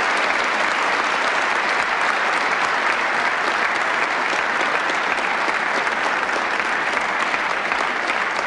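Audience applauding, a dense, steady clapping that neither builds nor fades.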